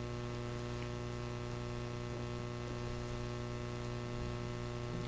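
Steady electrical mains hum, a low buzz with a stack of fainter higher tones above it, unchanging throughout.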